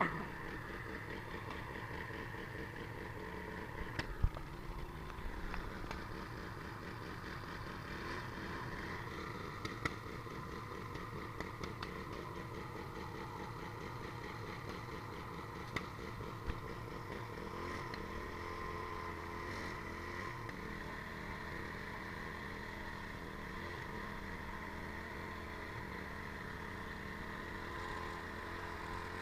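An engine running steadily at a constant speed, with a few short knocks over it.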